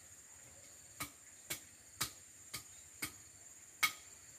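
Insects chirring steadily, with six sharp clicks about half a second apart, the last one the loudest.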